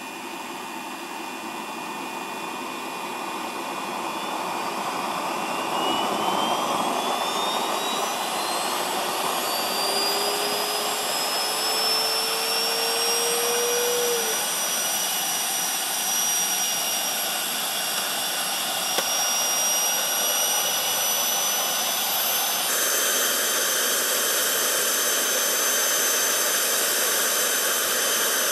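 Jakadofsky Pro 6000 model turbine in a scale RC Eurocopter EC-120 helicopter spooling up: the sound builds over the first few seconds, then a high whine climbs steadily in pitch for about eight seconds and settles into a steady turbine whine.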